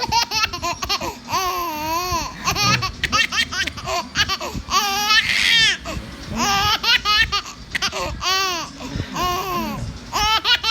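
A baby laughing in repeated high-pitched runs of giggles and squeals, with short pauses between bursts.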